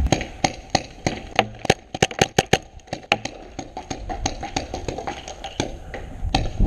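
Paintball markers firing: a scatter of sharp pops at uneven intervals, with a quick string of shots about two seconds in and another near the end.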